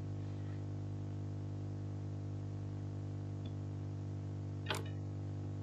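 Steady low electrical hum, with a single sharp computer-mouse click about four and a half seconds in.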